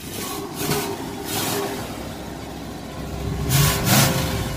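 A car engine running and revving in short bursts, loudest a little past halfway.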